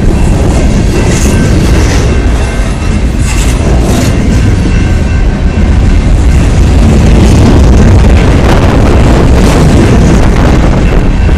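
Freight train cars rolling past at close range: a loud, steady rumble with the clack of steel wheels over rail joints.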